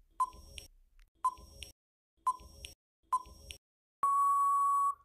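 Quiz countdown timer sound effect: four short beeps about a second apart, then one long steady beep of about a second as time runs out.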